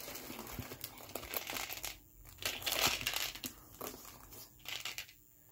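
Wrapping on a small gift box being crinkled and rustled by hand as the box is unwrapped: irregular crackling, pausing briefly about two seconds in and again near the end.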